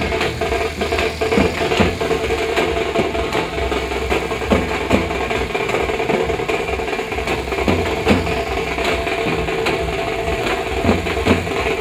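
Procession drums beating in a fast, uneven rhythm over a steady droning tone, with a low steady hum beneath.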